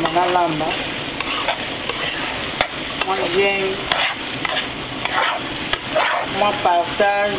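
A spatula stirring small fish frying in a stainless steel wok, with a steady sizzle and repeated irregular scrapes and taps of the spatula against the pan.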